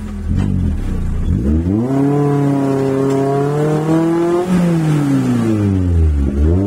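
Maruti Gypsy 4x4's engine revving hard under load on a muddy climb: the engine note rises about a second and a half in, is held high, then falls away and picks up again near the end.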